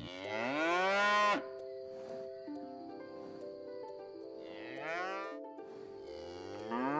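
Cow mooing twice. The first moo is loud and rises in pitch over about a second and a half; the second, about four and a half seconds in, is shorter and quieter.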